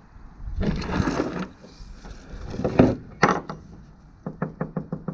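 Brief rubbing and scraping, then from about four seconds in a quick, even run of light taps, around five or six a second, on the boat's fibreglass deck while its hard and soft spots are being checked.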